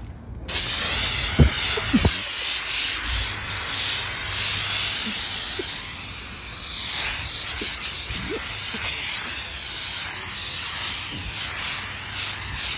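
Aerosol can of washable spray paint hissing steadily as paint is sprayed onto a car's body, switching on suddenly about half a second in. Two short knocks come a second or two in.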